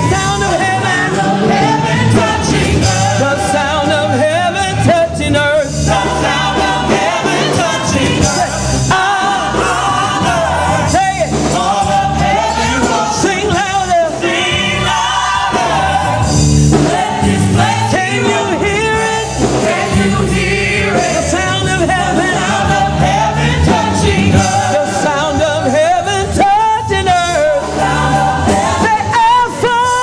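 Gospel praise song sung live: a female lead singer and praise-team vocalists at microphones, with musical backing.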